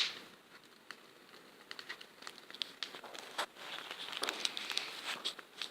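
Bonfire crackling with scattered sharp pops, the loudest right at the start, the crackle thickening about four seconds in; the popping may come from fibreglass burning in the fire.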